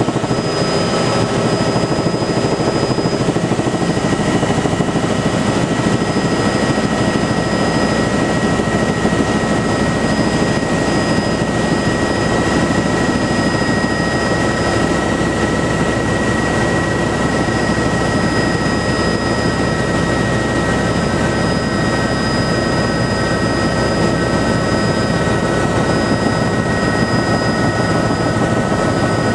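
Bell 206 JetRanger helicopter in flight, heard from inside the cabin: the steady whine of its Allison 250 turboshaft, several high tones held throughout, over a constant wash of rotor and airflow noise.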